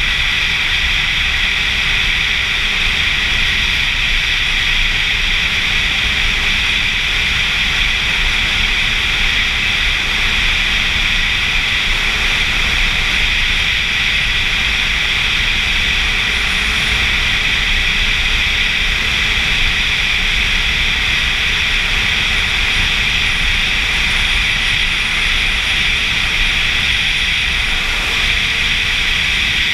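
Steady wind rush over the camera on a sport motorcycle cruising at highway speed, with the engine running underneath at an even pitch.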